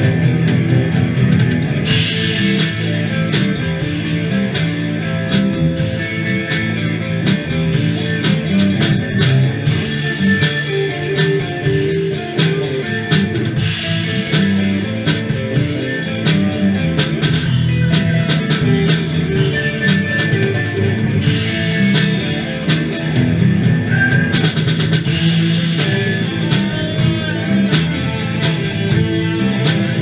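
Live rock band playing with electric guitars, bass and a drum kit, steady and loud throughout.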